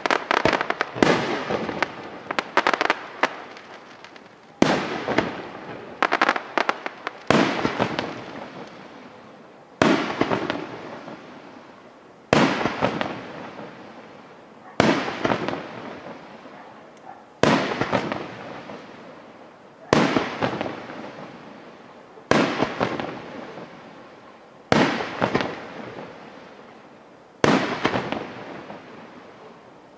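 Aerial firework shells from a Bruscella Fireworks display bursting one after another, about every two and a half seconds. Each sharp bang trails off into echo and crackle.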